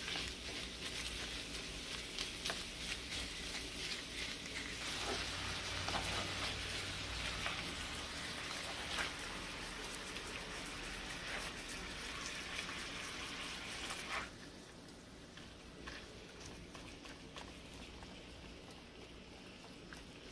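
Ground beef sizzling as it browns in a nonstick frying pan, with a slotted spatula scraping and tapping the pan as it breaks up the meat. The sizzle drops noticeably quieter about fourteen seconds in.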